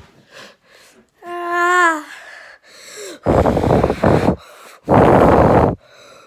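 A child's short, high, wavering vocal sound, then two loud breathy huffs about a second long each, close to the microphone.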